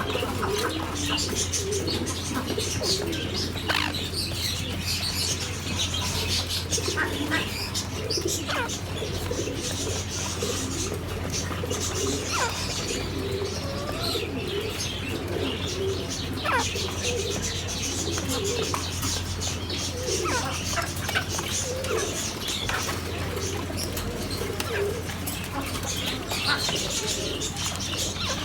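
Many birds calling at once, with low repeated calls and frequent high chirps, over a steady low hum.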